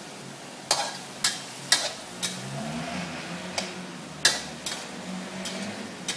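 Spatula scraping and clacking against a wok while chicken is stir-fried, a series of sharp clacks at uneven intervals, about one or two a second. A steady sizzle of frying runs underneath.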